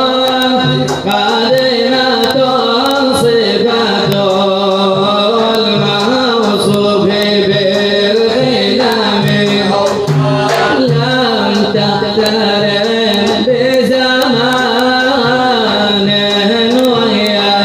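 Arabic nasheed: a male voice sings a wavering, ornamented melody over a steady, repeating drum beat.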